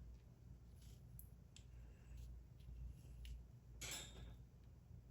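Faint, scattered light clicks of small lock parts being handled, with a brief rustle about four seconds in.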